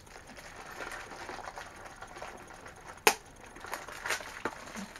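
Small cardboard blind box being handled and opened: soft rustling, one sharp click about three seconds in, then a few lighter taps.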